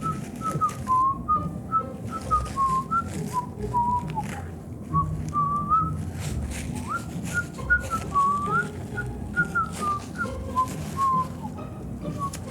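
A person whistling a slow, wandering tune, with irregular short clicks and scrapes underneath.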